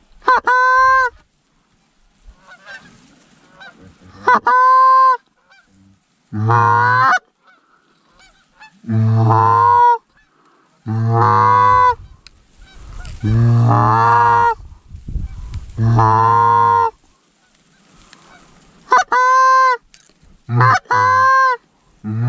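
Loud Canada goose honking: short, high, clear honks about half a second in, near four seconds and three times near the end, and between them a run of five longer, lower calls of about a second each, coming roughly every two seconds.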